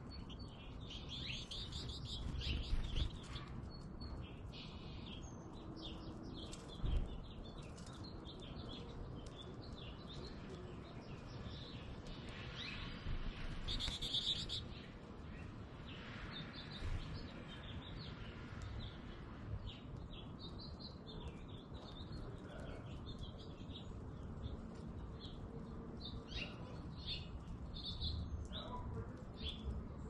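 Small finches, American goldfinches, twittering with many short, high chirps throughout, busiest a little before halfway. A dull low thump about seven seconds in.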